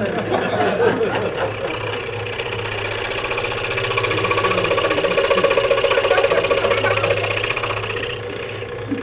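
Scroll saw running, its blade stroking rapidly up and down as it cuts through a stack of thin wooden boards. The cutting grows louder through the middle and eases off near the end.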